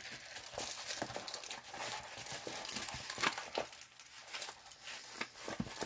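Plastic packaging of a diamond painting kit being handled, crinkling and crackling irregularly.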